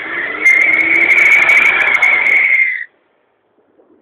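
Car tyres screeching under wheelspin in a burnout: a steady high squeal over rough noise that stops abruptly nearly three seconds in.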